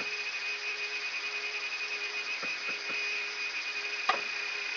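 Yak-42D cockpit background noise from the cockpit voice recorder during taxi: a steady hiss with a constant high whine and a fainter low hum, broken by a few faint clicks and one sharper click about four seconds in.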